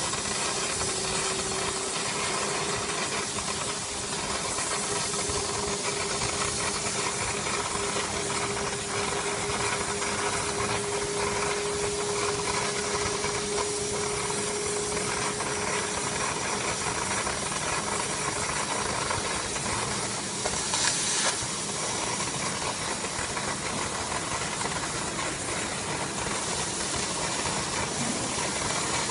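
CNC oxy-fuel cutting torch hissing steadily as its jet cuts through thick steel plate. A faint steady tone sits under it for the first half, and there is a brief louder rush of hiss about two-thirds of the way through.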